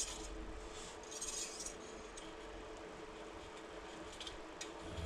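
Faint metallic clinks and rustling of steel spokes being threaded through the hub flange and laced past other spokes in a wheel build, loudest about a second in.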